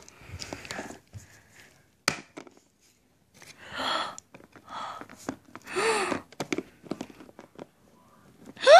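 Light taps and clicks of small plastic Littlest Pet Shop figures being picked up and set down by hand, with several breathy vocal sounds in between and a short voice sliding down in pitch near the end.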